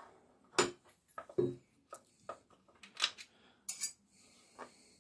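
Sprocket wrench clinking and knocking against the sprocket cover nuts and bar of a Stihl MS441 chainsaw as the cover is loosened. About eight sharp metallic clicks come at uneven intervals, one ringing briefly about three-quarters of the way through.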